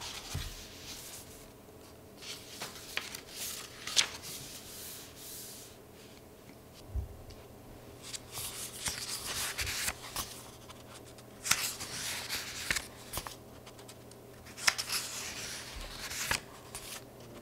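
Paper pages of a MUJI weekly notebook being turned by hand: several spells of soft rustling, with a few crisp flicks as pages snap over.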